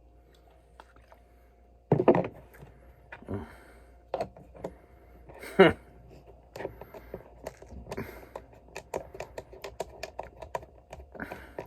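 Light, irregular clicks and taps, several a second, through the second half, with a few short louder sounds earlier, one of them voice-like. A steady low hum underneath.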